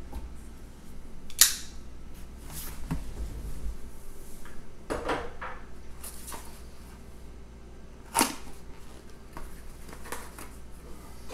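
Small cardboard box being handled and opened, with rustling and scraping and two sharp snaps, the loudest about a second and a half in and another about eight seconds in.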